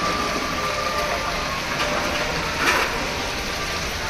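Water pouring steadily from wall spouts and splashing into a stone channel, with a brief louder surge a little past halfway.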